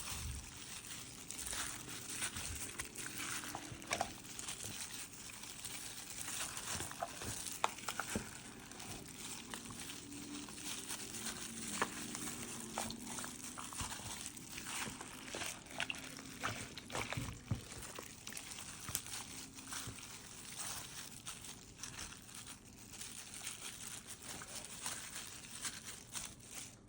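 Hands rubbing dry seasoning into a batch of raw goat meat: soft wet handling sounds with many small scattered clicks and taps.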